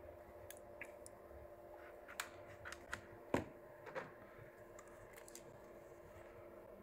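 Faint, scattered clicks and taps of small tools handled on a workbench, the loudest about three and a half seconds in, as multimeter probes are set down and a hand magnifier is picked up. A low steady hum sits underneath.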